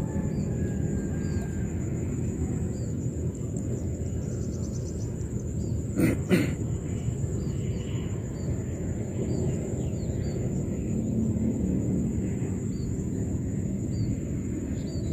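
Open-air ambience beside a water-hyacinth-choked pond: a steady low rumble of wind on the microphone under a constant high thin whine and scattered faint short chirps. About six seconds in, two sharp clicks sound close together.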